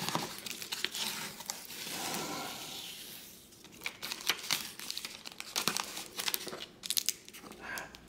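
Adhesive reseal tape being smoothed onto a cardboard box and its paper backing peeled away: a soft rubbing hiss over the first few seconds, then a run of short crackles and crinkles.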